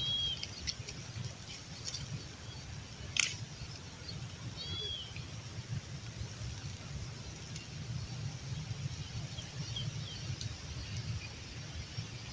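Quiet outdoor field ambience: a steady low rumble, with a few short high bird chirps near the start and a pair about five seconds in. There is one sharp click about three seconds in.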